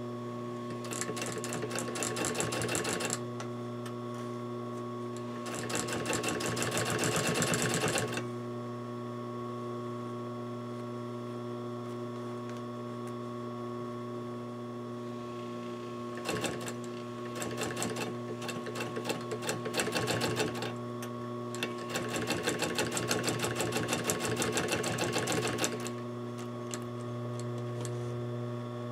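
Industrial sewing machine top-stitching fabric in four short runs of rapid needle clatter, stopping and starting between them. A steady hum continues underneath throughout.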